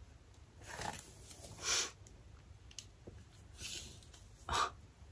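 Hands running through and lifting long hair, giving four short rustling swishes; the second and last are the loudest.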